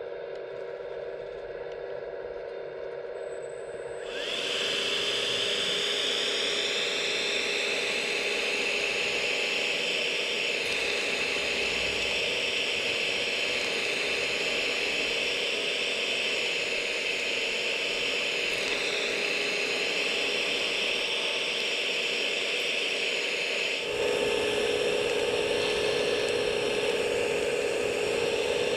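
RC model excavator's electric hydraulic pump whining steadily. About four seconds in, the buzzing rattle of the vibratory post-driver attachment joins it as the bollard post is driven into the ground. The pump whine rises near the end.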